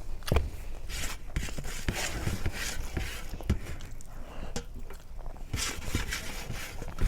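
Close-miked wet chewing and lip-smacking of someone eating soft mashed vegetables and daal, an irregular run of small clicks and smacks.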